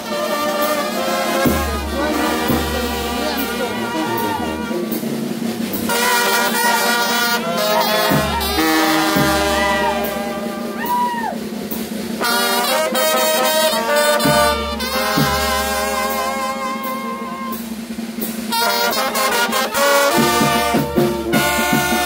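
Oaxacan Mixtec brass band playing a chilena: trumpets, trombones, saxophones and clarinets carrying the tune in phrases over snare drum, bass drum and cymbal, with a tuba in the bass.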